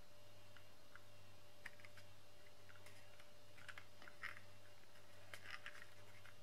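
Scored patterned paper crackling and clicking faintly as fingers fold and press its creases into line: scattered small, irregular clicks, busiest past the middle, over a low steady hum.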